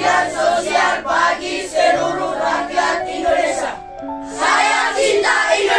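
Group of children singing together as a choir, holding sustained notes, with a short break between phrases about four seconds in.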